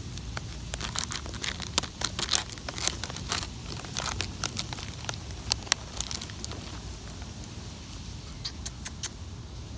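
Plastic stand-up snack pouch crinkling as a hand rummages inside it and draws out a biscuit: a dense run of sharp crackles for the first six seconds or so, then a few scattered crinkles near the end.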